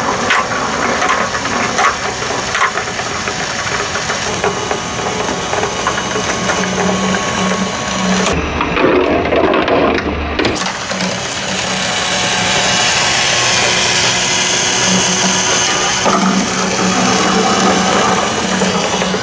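Plastic balls rolling and rattling along plastic toy marble-run tracks, with the whir of a small battery-powered toy motor driving the course's escalator and spinning bucket.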